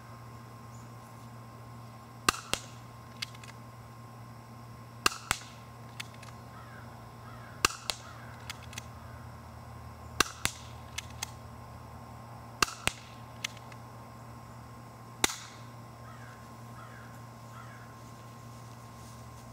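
Spring-powered G.1 airsoft pistol fired six times, a sharp pop about every two and a half seconds, each followed by a few lighter clicks as it is cocked for the next shot.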